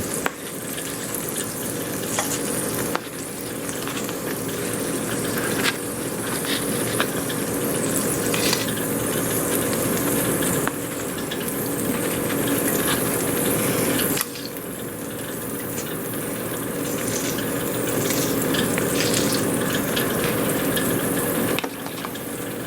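Thin slices of porcupine meat sizzling as they fry in butter in a pan, with a few light clicks. The sizzle drops and rises abruptly in level a few times.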